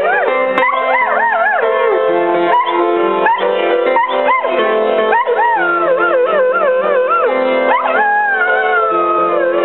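Rough collie howling along to music, its voice wavering up and down in quick yodelling rises and falls, with one longer, slowly falling note near the end. Steady held chords play underneath.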